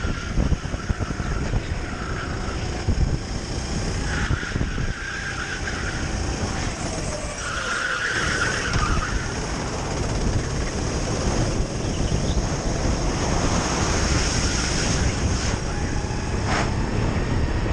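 Onboard sound of a Sodi RT8 rental kart at racing speed: its engine running hard under wind buffeting on the microphone, the note falling once while slowing for a corner. A higher squeal-like note comes and goes twice.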